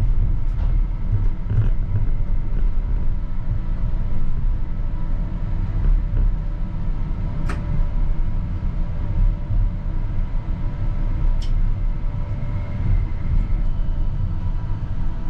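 CAF Urbos 100 tram running, heard from the driver's cab: a steady low rumble from the wheels and running gear, with a few short clicks.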